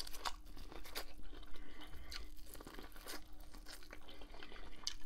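Corn on the cob being bitten and chewed: an irregular run of small crunches and wet clicks as the kernels are stripped from the cob.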